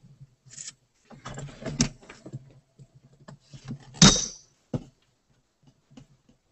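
Handling noise at a lectern microphone: a run of knocks, clicks and rustles, with the loudest thump about four seconds in and a sharp click just before five seconds.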